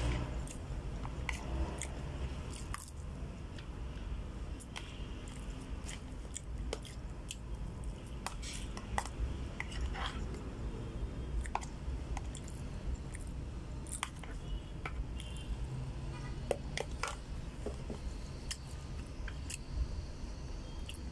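A person chewing food close to the microphone, with a metal spoon clicking and scraping against a plastic food container at scattered moments.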